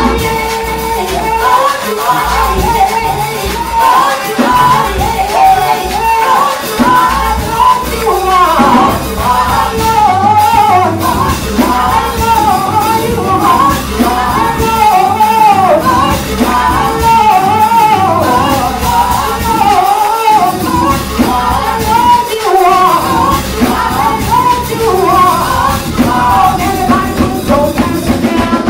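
A woman singing a worship song into a microphone over live instrumental accompaniment, her voice sliding up and down in long runs.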